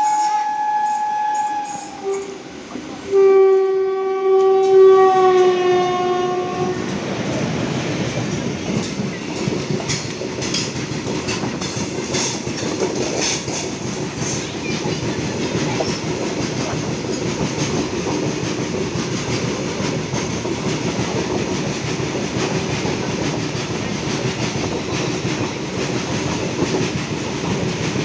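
Train horn sounding twice: a high single-note blast of about two seconds, then a longer, lower chord-like blast that sags slightly in pitch. From about seven seconds in, a long freight train of open wagons passes close by on the next track with a steady rumble and clickety-clack of wheels over rail joints.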